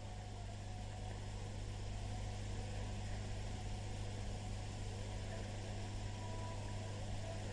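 Steady low electrical hum with a faint hiss in the recording, and no voice.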